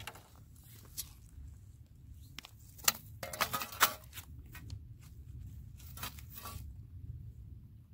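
Rustling, clicking and crackling as a landed striped bass is handled in a landing net on shore stones. A dense burst of crackles comes about three seconds in and a shorter one near the end, over a steady low rumble.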